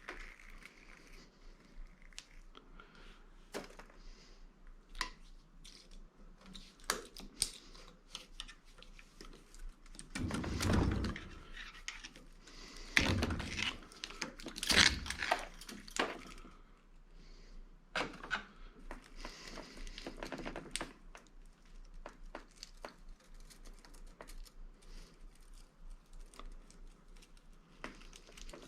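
Hand work on a scrap electric motor while its copper is stripped out: scattered clicks, scrapes and crinkling of plastic bits, with a few heavier thumps about ten to fifteen seconds in.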